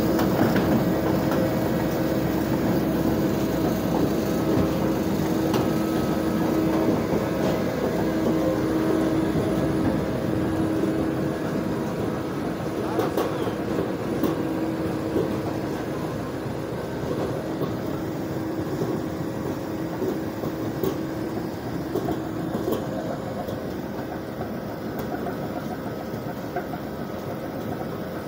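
ROPA Maus sugar beet cleaner-loader running steadily while loading: engine and conveyor chains, with beets rattling along the boom, a steady hum that stops a little over 20 seconds in, and the whole gradually getting quieter.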